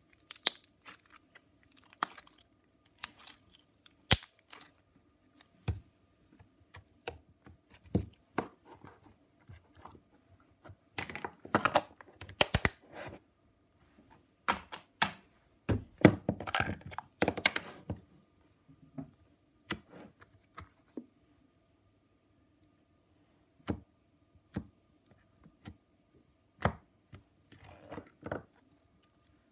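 Slime being squeezed and handled by hand, giving irregular clicks, pops and small thunks, busiest in two flurries near the middle.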